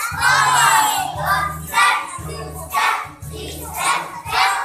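A group of young children singing a song together in unison, over a backing track whose low bass notes come in short blocks about every half second.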